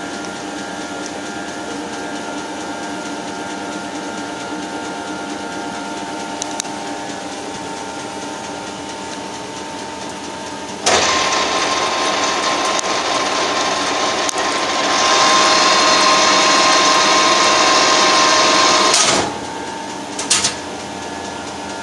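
Metalworking lathe running with a steady hum, then about halfway through a sudden, much louder rushing noise with a steady whine as the threading tool is fed through the bore, cutting an internal thread under power feed. It gets louder again a few seconds later and cuts off suddenly near the end as the feed and cut stop.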